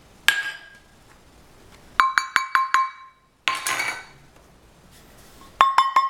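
A metal utensil clinking against a glass bowl while dry ingredients are stirred: a single clink, then runs of about five quick ringing taps a second apart, with a short scraping swish between them.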